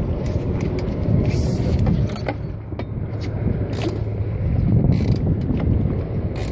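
Steady low rumble of the sport-fishing boat's engine running, with wind noise on the microphone and scattered short clicks from gear on deck.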